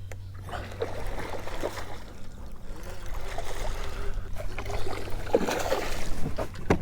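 Water sloshing and trickling around a kayak, with scattered knocks from gear being handled and a sharp knock near the end.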